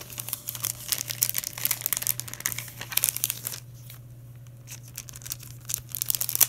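Clear plastic packaging crinkling as it is handled and sticker skins are pulled out of it: dense crackling for the first few seconds, a quieter spell, then crinkling again near the end.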